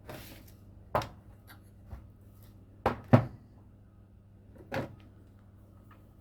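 Sharp clicks and knocks from objects being handled, set down or bumped on a workbench: a brief hiss at the start, then about five knocks, two of them close together just after the middle, over a faint steady hum.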